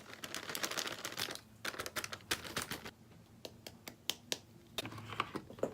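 Packaging crinkling and rustling as it is handled for about a second and a half, then scattered light clicks and taps.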